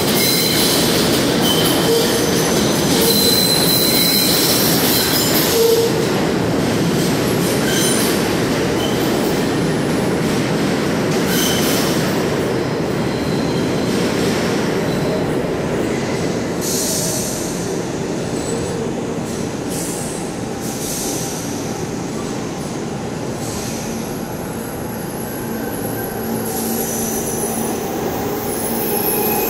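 New York City subway train pulling into an underground station: a steady rumble of steel wheels on the rails with short, high-pitched wheel squeals coming and going throughout.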